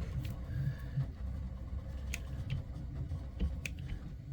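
A few faint clicks and light taps from a copper lug and crimping tool being handled and positioned, over a steady low background rumble.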